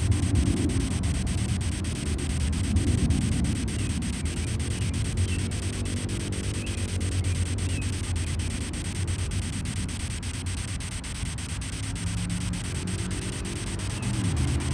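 Ghost-hunting spirit-box app playing static: a steady white-noise hiss chopped into rapid, evenly spaced flutters, with a low rumble underneath.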